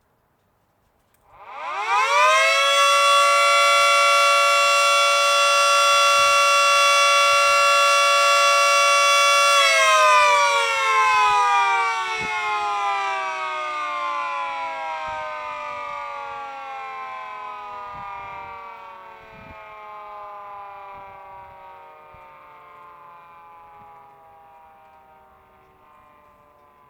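Miniature model 2T22A dual-tone warning siren winding up, with two tones sounding together as a chord. It spins up to full pitch in about a second and a half and holds steady for about seven seconds. Then it coasts down with both tones falling slowly and fading away.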